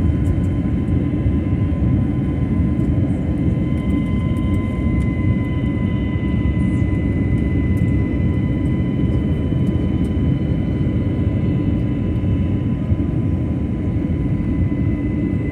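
Steady jet engine and airflow noise heard inside an airliner's cabin as it climbs after takeoff: a dense low rumble with thin steady whine tones above it, one of which rises slightly about five seconds in.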